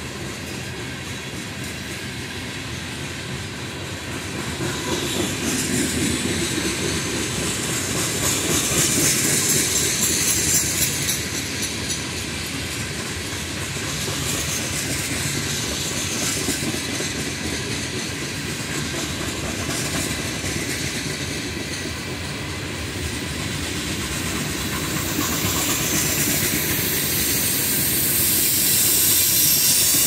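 Freight cars of a ballast train rolling past, a steady rumble with the clickety-clack of wheels over the rails. A high hiss swells about a third of the way in and again near the end.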